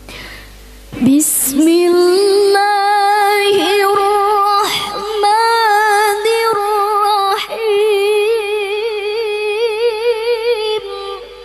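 Female Qur'an reciter (qoriah) chanting a long melodic phrase into a handheld microphone. She holds sustained notes, with wavering, ornamented turns, from about a second in until just before the end.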